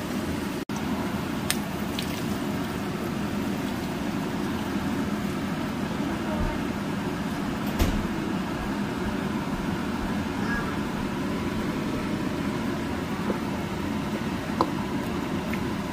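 Pork belly cubes sizzling steadily as they fry in their rendered fat in a nonstick pan, with a few light knocks of a wooden spatula stirring them.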